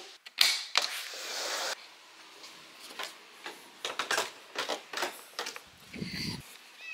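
Footsteps on outdoor steps and concrete, about two a second, with rustling from the handheld camera near the start.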